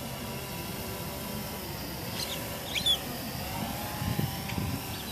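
Blade 350QX quadcopter's brushless motors and propellers whining steadily as it flies, the pitch briefly swelling and falling about three and a half seconds in. A short bird chirp, the loudest sound, comes about three seconds in.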